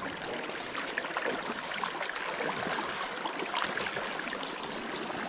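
Shallow river water running steadily around a wading angler's hand, with small splashes and trickles, as a brown trout is held in the current and released.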